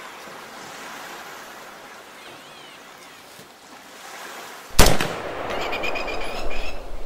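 A single loud rifle shot about three-quarters of the way through, after a few seconds of quiet outdoor ambience with faint bird chirps. The shot is followed by a couple of seconds of louder, uneven noise and crackle.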